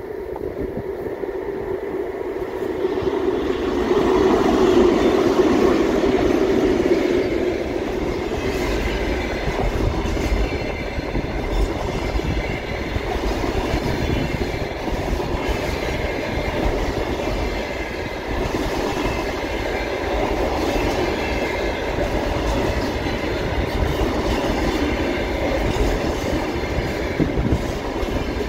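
A 2TE116 twin-section diesel locomotive grows louder as it approaches and passes, loudest about five seconds in. A long container train then rolls by with steady wheel noise and a rhythmic clickety-clack over the rail joints.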